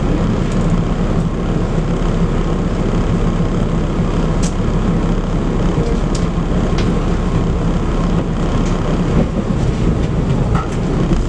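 Tram running along street track, heard from inside the car: a steady rumble of the motors and wheels on the rails, with a few short sharp clicks.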